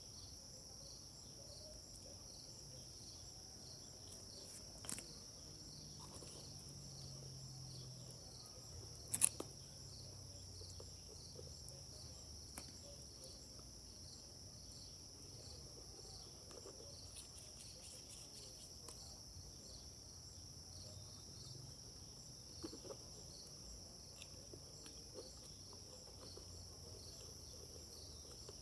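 Insects chirping in a steady, high, continuous trill, with a few short sharp clicks, the loudest about nine seconds in.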